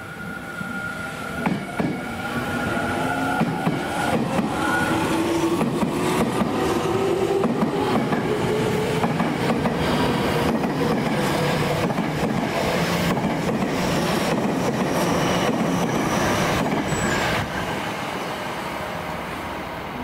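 A Tobu Tojo Line electric train passing close by: wheels clattering over rail joints, with a motor whine that shifts in pitch. It grows loud within the first few seconds and fades near the end.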